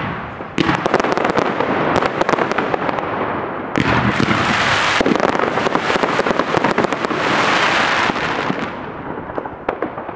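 Fireworks firing in quick succession: a dense run of crackling and popping from bursting stars. It grows fuller and louder about four seconds in and thins out near the end.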